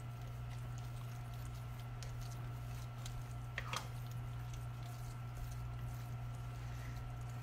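Silicone spatula stirring a wet mixture of shredded chicken, salsa verde and cheese in a bowl: soft squishing and small clicks, with one louder scrape a little past halfway, over a steady low hum.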